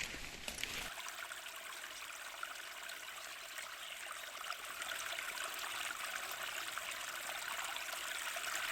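Small waterfall splashing: a steady rush of falling water that grows a little louder about halfway through.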